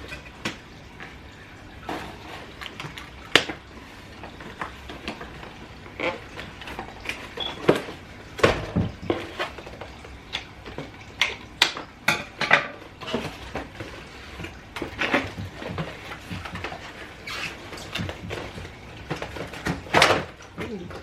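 Hands handling a toy RC car's box and plastic packaging: irregular clicks, knocks and rustles of plastic and cardboard.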